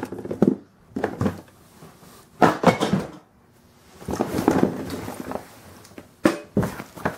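Household items being rummaged through and lifted out of a cardboard box: several bursts of knocking, clattering and rustling with short sharp clicks.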